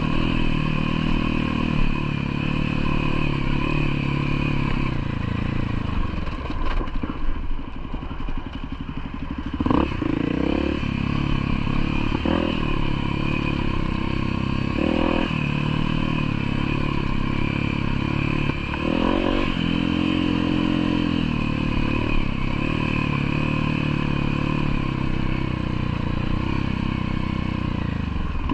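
Trail motorcycle engine running while riding, its pitch dropping and rising with the throttle several times, with rattling over rough ground.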